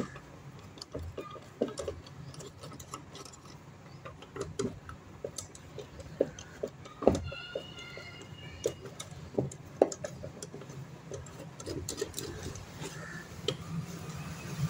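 Screwdriver turning out the screws of an electric iron's plastic shell: irregular light clicks and taps of the tip in the screw heads and against the plastic, with a few louder knocks.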